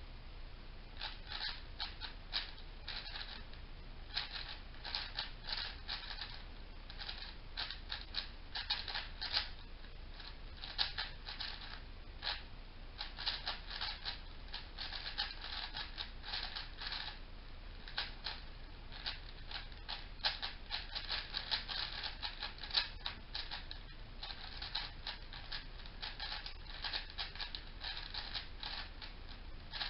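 MoYu AoChuang 5x5 speed cube being turned fast during a timed solve: rapid runs of plastic clicks and clacks from the layers turning, in short flurries with brief pauses between them.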